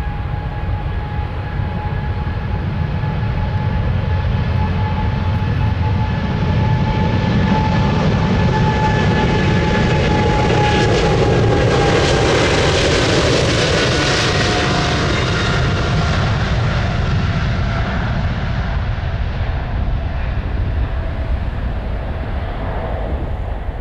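Embraer E195-E2 jet's Pratt & Whitney PW1900G geared turbofan engines at takeoff power, passing by: a loud steady engine noise with a high fan whine whose pitch slowly falls, loudest about halfway through and easing off toward the end.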